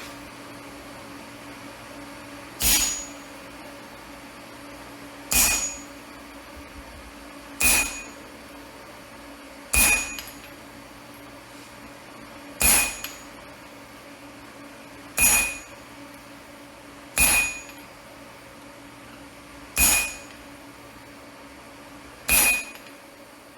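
Hammer striking steel, nine single, evenly paced blows about two and a half seconds apart, each with a brief metallic ring, over a steady low hum.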